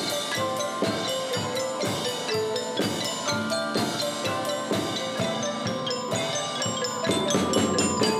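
Percussion ensemble playing: marimbas and xylophone sound quick runs of struck, ringing notes over a drum kit.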